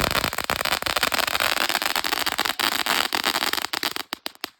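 Consumer firework going off with a steady hiss packed with dense crackling, thinning to a few last crackles about four seconds in before it cuts out.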